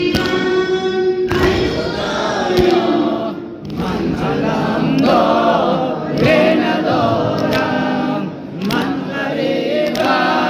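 Afghan nawha, a Shia mourning chant in Persian, sung by a group of voices in a choir-like chorus, with a few sharp beats heard behind the singing.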